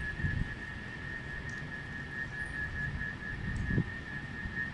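A steady high-pitched whistling tone starts suddenly and holds on one pitch, over a low rumble of wind on the microphone with a thump near the end.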